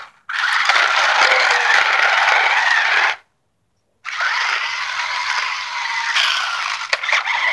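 Toy remote-control car's small electric motor and gears whirring as it drives in circles: a steady, noisy whir that cuts out completely for about a second midway.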